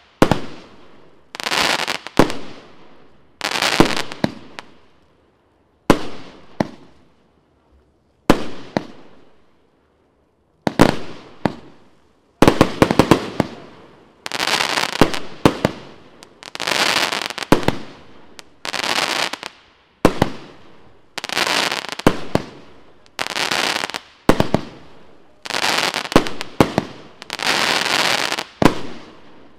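Evolution Fireworks 'Golden Age' firework firing shot after shot. Each shot is a sharp bang followed by about a second of fading crackle. The shots come roughly every one to two seconds, with a slower stretch about a third of the way in.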